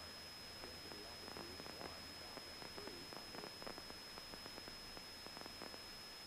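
Faint headset intercom feed during a Cessna 172's takeoff roll: a steady high-pitched electrical whine with a low hum, soft crackles and faint wavering tones. The engine at takeoff power is barely heard.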